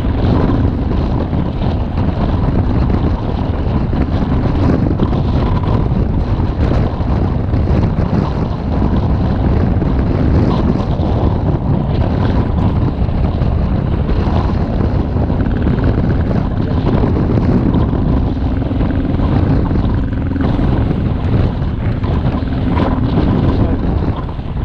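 Adventure motorcycle engine running steadily while riding off-road, under heavy wind noise buffeting the microphone.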